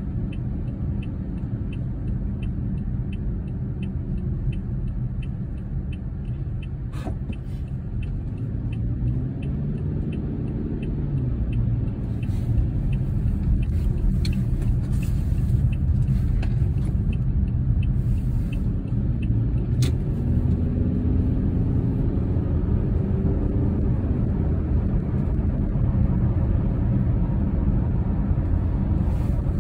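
Car interior while driving: a steady low engine and road rumble that grows a little louder from about twelve seconds in. A light, regular ticking about two a second runs under it until about twelve seconds in.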